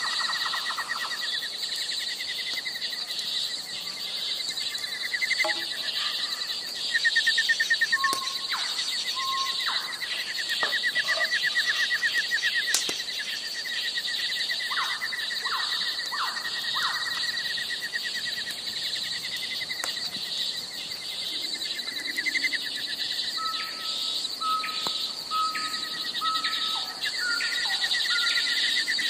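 Crickets and other night insects trilling in a steady chorus, with a few short, higher single notes and an occasional sharp click.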